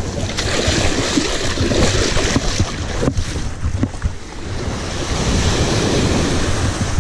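Small surf waves breaking and washing over the sand at the water's edge, with wind buffeting the microphone in a heavy, uneven rumble.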